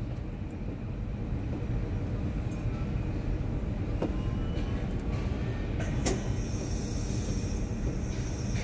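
Potain MD569 tower crane machinery running, a steady low rumble with faint whines rising and falling and a couple of light clicks, about four and six seconds in.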